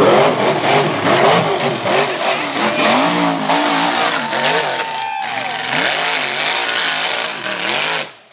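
Rock bouncer buggy's engine revving hard, rising and falling over and over as it climbs a steep dirt hill, with rough noise from spinning tyres and dirt; the sound drops off sharply just before the end.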